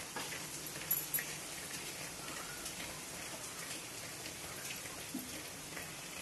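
Cooking oil heating in a steel kadai over a gas burner, giving a fine, steady crackle of small ticks, with two sharper clicks about a second in.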